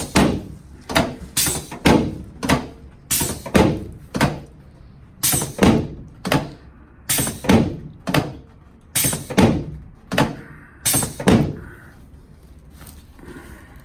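A long run of sharp thumps, about one or two a second, each with a short ringing tail, made as a chiropractor works on a patient's sacroiliac (SI) joints. The thumps stop about eleven seconds in.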